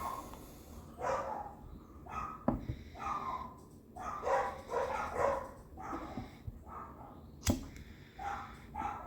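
A dog barking repeatedly in short calls, with two sharp clicks, one about two and a half seconds in and one near the end.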